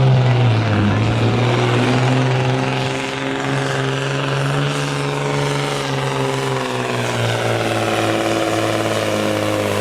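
Heavily modified diesel truck engine running hard at high revs, as in a truck pull. Its pitch dips about half a second in, then holds and sinks slowly over the last few seconds.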